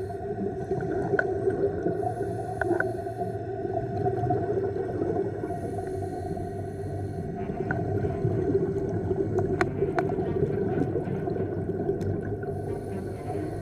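Underwater sound of scuba diving: a steady low drone, with a regulator's breaths hissing every few seconds and a few sharp clicks.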